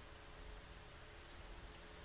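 Near silence: faint steady background hiss with a low hum.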